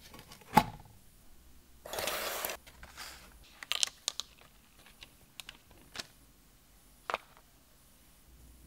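A sharp knock, then a short hiss about two seconds in, followed by scattered light clicks and taps as small plastic toy parts are handled and set down on a workbench.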